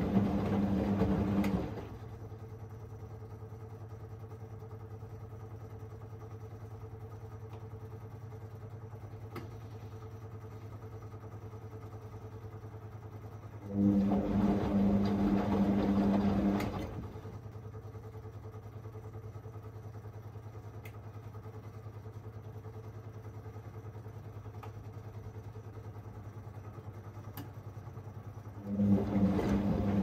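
Whirlpool AWM1860 washing machine's motor turning the drum through the wash in short runs of about three seconds, roughly every fifteen seconds, with a steady low hum between runs. This stop-start tumbling is the gentle wash action of a synthetics 40 °C programme.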